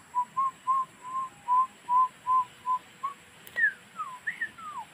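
A run of short whistled notes on nearly one pitch, about three a second, with a few notes sliding down from higher partway through before the even run resumes.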